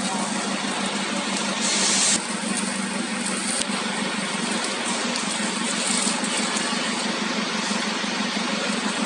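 Steady machinery noise with a constant low hum. A brief louder hiss comes about two seconds in, and a single sharp click follows a second and a half later.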